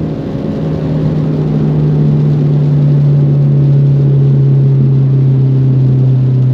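Ford Mustang engine running at one steady pitch, a constant drone over an even hiss. It drops in loudness right at the start, then holds steady.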